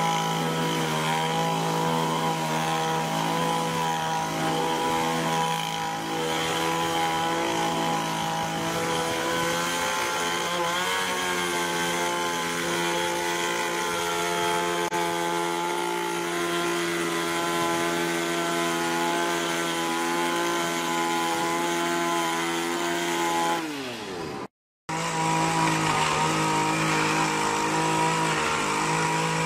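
Small petrol engine of an HT230 hedge trimmer running steadily at high revs. Near the end the revs fall away, the sound breaks off for a moment, and then it runs at high speed again.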